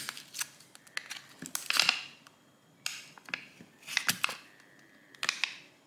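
A thin pry tool scraping and clicking between a phone's plastic frame trim and its glued display, with crackling as the display adhesive gives way. It comes in short bursts a second or so apart, with quiet gaps between.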